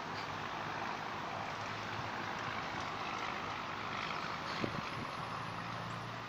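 Steady low hum of distant motor traffic, with a single sharp click about four and a half seconds in.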